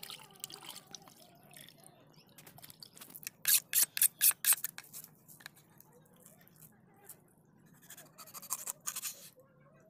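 A kitchen knife working a fish on a wooden chopping board: a quick run of about six loud scraping strokes about three and a half seconds in, and another run of strokes near the end.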